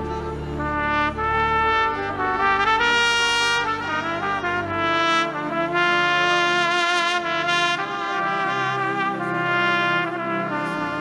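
Trumpet playing a slow, lyrical solo melody of held notes over sustained low keyboard chords.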